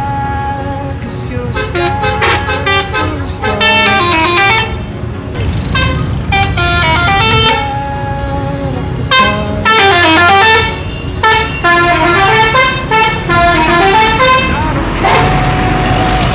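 Bus 'telolet' musical air horns playing a melody: runs of short stepped notes that go down and back up, repeated several times with brief pauses, ending in one long held note. A low engine rumble runs underneath.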